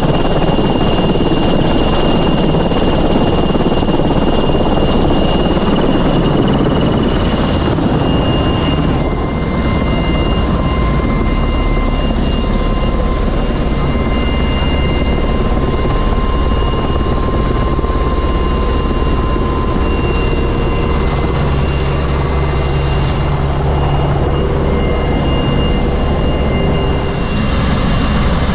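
PZL W-3 Sokół helicopter's twin turboshaft engines and main rotor running loudly and steadily, with a high turbine whine over the rotor noise. Heard first from beside the helicopter, then from inside its cabin with the side door open.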